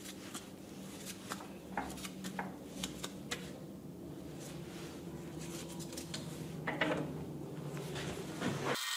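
Light scattered clicks and taps of metal as a three-jaw lathe chuck is turned and handled by a gloved hand, over a faint steady low hum.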